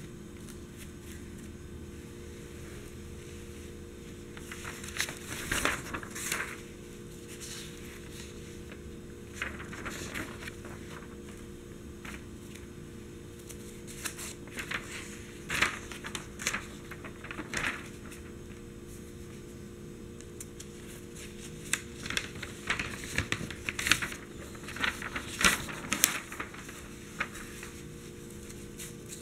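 Newspaper pages being handled and turned: dry newsprint rustling and crinkling in several bursts of a second or two, with quiet stretches between.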